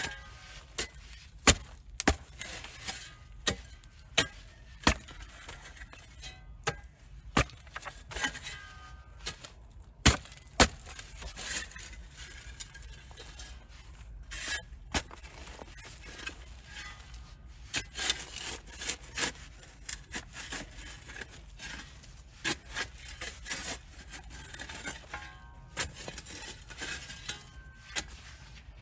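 Metal digging tool chopping and scraping into garden soil: a string of sharp strikes at an irregular pace, some with a short metallic ring.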